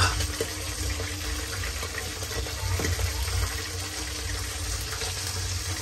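A pot of squash soup boiling on the stove, a steady bubbling over a low rumble, with a short sharp knock right at the start.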